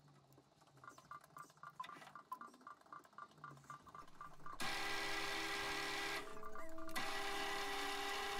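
Hafco AL320G metal lathe started about halfway through, its spindle running steadily with a whine and a hiss for a thread-cutting pass. The sound drops briefly about a second and a half after starting, then picks up again. Faint, even ticking comes before it starts.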